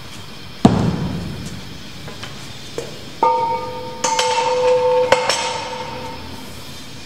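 Iron weight plates and a barbell being handled on a gym floor. A heavy thud comes about half a second in, then from about three seconds in several metal clanks follow, each leaving a ringing tone that fades over a couple of seconds.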